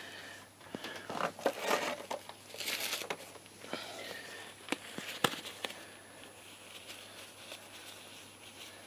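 Crinkling and rustling of gloved hands working around the motorcycle's rear brake master cylinder, with a few sharp clicks and taps of small parts, mostly in the first half.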